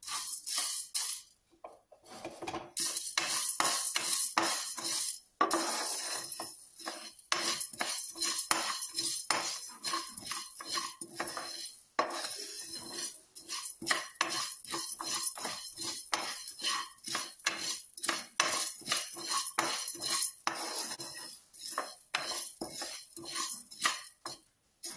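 Wooden spatula stirring dry coriander seeds, fenugreek and urad dal in a nonstick kadai: repeated scraping strokes against the pan with the rattle of seeds being dry-roasted.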